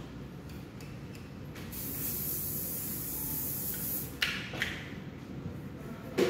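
Spray onto a customer's hair: one steady hiss of about two seconds, followed by a few sharp clicks, the loudest near the end, over a low background hum.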